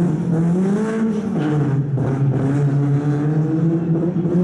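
Renault Clio slalom car's engine revving hard in a low gear between the cones. The pitch rises to a peak about a second in, drops as the driver lifts, then holds fairly steady with small rises and dips.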